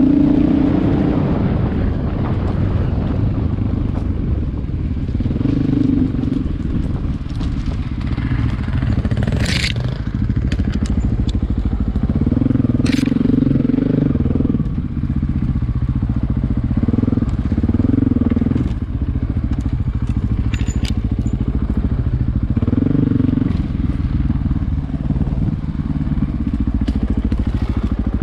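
Motor vehicle engine running under load, the throttle surging every few seconds, with scattered sharp clicks and knocks.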